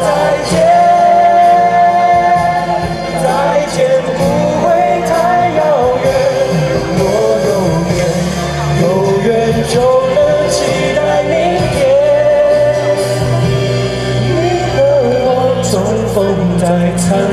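A singer performing a Mandopop song live over a karaoke backing track, holding long sung notes.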